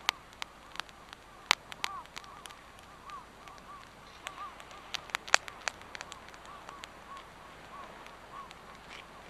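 Wood campfire crackling, with irregular sharp pops from the burning wood, the loudest a little over a second in and about five seconds in. Under it runs a string of short, faint chirping calls.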